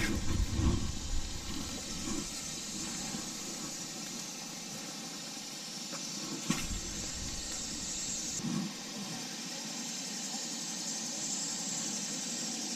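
Steady outdoor hiss with an even high-pitched drone over it, from a pond bank on a summer day. A few low handling knocks of the rod and reel in the first second, and one sharp click about six and a half seconds in.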